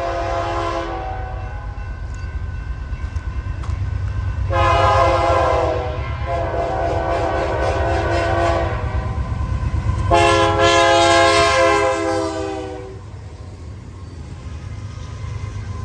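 Nathan Airchime K3LA three-chime locomotive horn sounding in several blasts. One blast ends about a second in, a long one runs from about four and a half to nearly nine seconds with a brief dip around six, and another lasts about three seconds from around ten seconds. A heavy low rumble of the train runs underneath.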